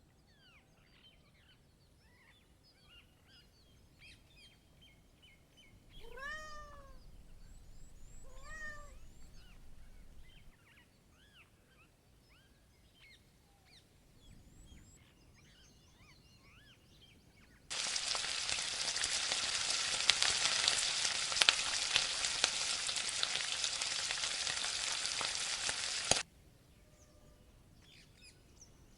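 Faint birds chirp in the background while a cat meows twice, once about six seconds in and again a couple of seconds later. About eighteen seconds in, a loud steady hiss begins; it runs for about eight seconds and cuts off abruptly.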